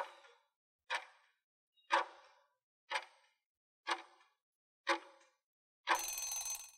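Countdown-timer clock-tick sound effect, six ticks about one a second, each with a short ringing tail. About six seconds in, as the count reaches zero, a harsher, rougher sound with a thin high tone runs for under a second.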